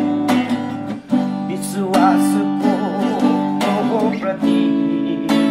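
Cutaway acoustic guitar strummed in a steady rhythm, a stroke about every second, each chord ringing on between strokes.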